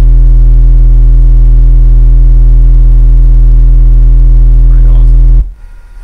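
15-inch Brutus subwoofers driven by a Boss monoblock amplifier, playing a looped 40 Hz sine-wave test tone from a bass test CD. It is a steady, very loud low hum with a stack of overtones, and it cuts off suddenly near the end when the track stops, because it was not set to repeat.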